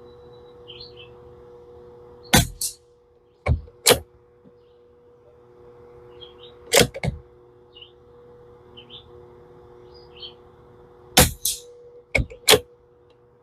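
Sharp metallic clacks, in quick pairs about five times, from the bolt of a Tikka T1x .22 rimfire bolt-action rifle being worked to clear an old round from the chamber. Birds chirp softly between them.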